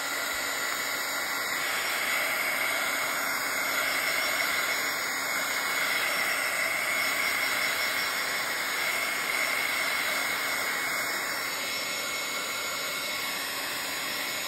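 Handheld craft heat tool blowing steadily, a rush of air with a faint high whine, drying wet silver acrylic paint.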